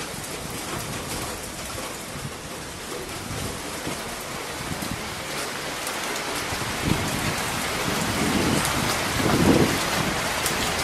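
Steady rain falling on the paved yard and surfaces around, getting heavier and louder in the second half.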